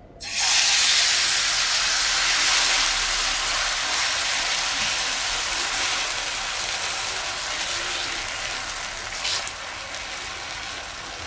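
Runny wheat-flour and potato paratha batter sizzling as it is poured into hot oil in a non-stick frying pan and spread out with a ladle. The hiss starts suddenly and slowly dies down as the batter settles.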